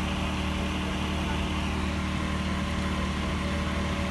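A machine running with a steady low hum made of several even tones.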